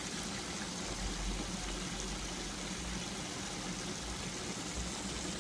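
Steady rushing and bubbling of water being aerated and churned in Bioponica bucket vortex aerators brewing liquid fertilizer, with a low hum underneath.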